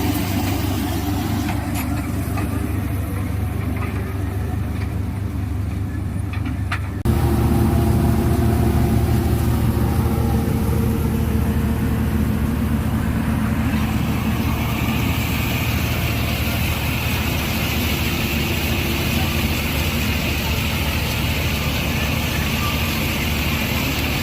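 Tractor-mounted combine harvester running steadily: a 65 HP Swaraj 963 tractor engine driving a Gill 588 double-rotor machine that cuts and threshes wheat. The sound steps up abruptly about seven seconds in, and a hiss joins about halfway through.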